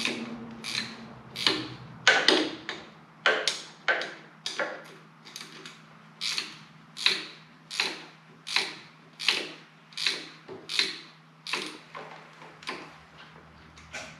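Hand wrench working a nut off a long stud in short strokes, a quarter turn at a time: a steady rhythm of about twenty short rasping metal clicks, roughly one and a half a second.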